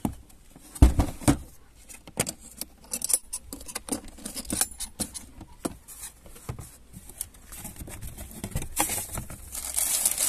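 A hard plastic tool case being opened: clicks from its metal latches, then two heavy thumps about a second in, followed by scattered clicking and rattling as the contents are handled. Near the end comes a plastic bag crinkling.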